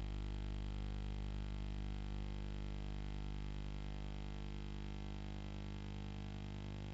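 Steady electrical mains hum: a low, unchanging buzz with a ladder of overtones, and nothing else.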